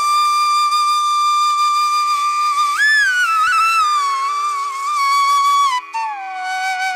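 Background music: a solo flute melody over a faint steady drone. It holds one long note, then rises and slides down with small bends, and drops to a lower note near the end.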